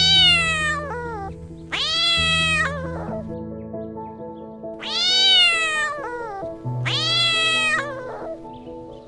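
Domestic cat meowing four times, each long meow rising and then falling in pitch, over steady background music.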